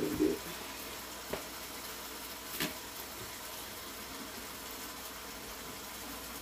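Taco meat (ground beef with seasoning and water) sizzling in a skillet as it cooks down: a steady hiss, with three sharp knocks in the first three seconds.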